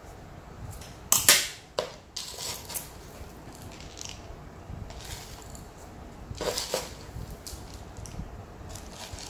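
Metal tweezers clacking against a glazed ceramic pot and tray, the sharpest clack about a second in and another just after, followed by quieter scuffs and rustles of gloved hands working dry potting mix around a succulent cutting.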